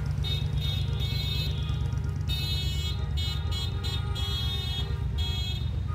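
Car horns honking in a string of blasts of varying length, some short and some held for over a second, over a steady low rumble.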